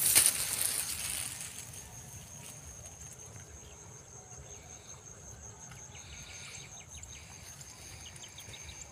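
Rice leaves and panicles brushing and rustling against the phone for the first second or so, then a steady high-pitched insect trill over the quiet rice field.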